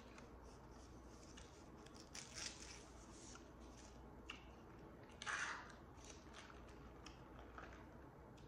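Faint rustling and tearing of a paper straw wrapper being pulled off a drinking straw, with a short, louder crackle about five seconds in.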